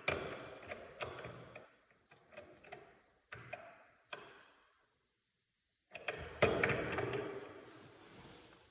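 Metal door hinge pin being tapped down into the hinge: single light taps about a second apart, a pause, then a quick run of taps about six seconds in.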